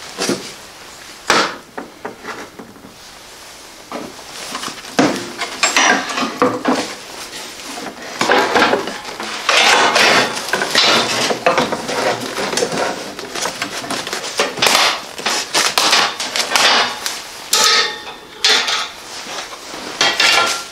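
Clattering and knocking of snowblower handle parts being handled and fitted, mixed with crinkling of packing plastic being pulled off, in a run of irregular clicks and rustles.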